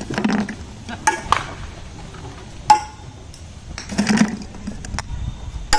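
Several sharp knocks of cricket balls being struck, the loudest a ringing crack about two and a half seconds in.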